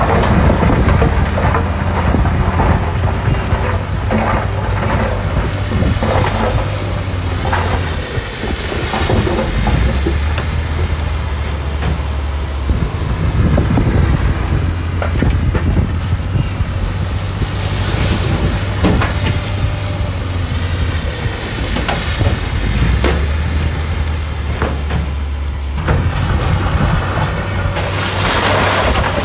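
Heavy diesel earthmoving machinery running with a deep steady engine drone that dips twice, with scattered knocks and clatter of stone.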